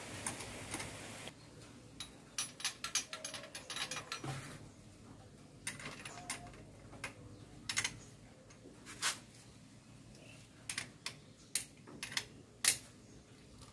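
Hand tool clicking and clinking on metal as the starter motor's cable terminal is fitted and its nut tightened. The clicks come in a quick cluster a couple of seconds in, then sparser single clinks.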